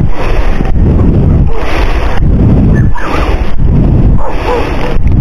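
Loud wind buffeting the microphone over sloshing water, rising and falling in surges about once a second.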